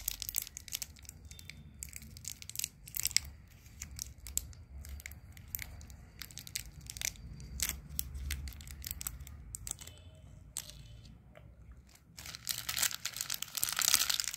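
Crinkly plastic wrapper of a Jelly Mazza guava jelly sweet crackling and rustling as it is handled and opened by hand, in many small sharp crackles. About twelve seconds in the crinkling turns denser and louder for a couple of seconds.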